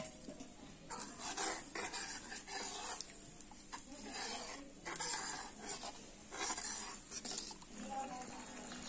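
A steel ladle stirring a thin curry in an iron kadhai, scraping against the pan in a series of strokes about a second apart.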